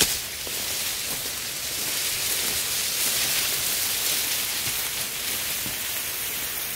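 Leafy cut oleander branches dragged over dry grass: a steady, dense rustling hiss, with a brief knock right at the start.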